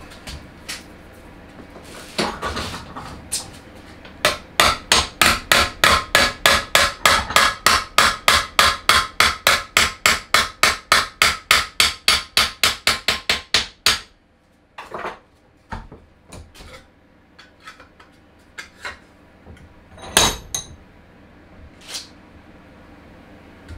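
Hammer blows on a metal sheet clamped in a bench vise: a fast, even run of about four strikes a second for roughly ten seconds, starting about four seconds in. After that, a few scattered metal clanks as the work is handled.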